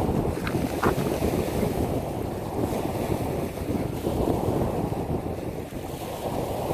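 Small waves washing onto a pebble beach, with wind buffeting the microphone. Two brief sharper splashes stand out in the first second.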